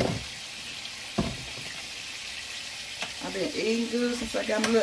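Beef burger patties frying in a griddle pan, with a steady sizzle. Two knocks come at the start and about a second in.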